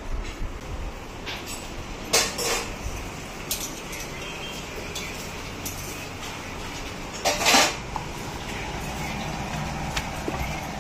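Kitchen clatter: a few short, sharp clinks and knocks of steel utensils and dishes, the loudest about seven seconds in, over a steady low hum.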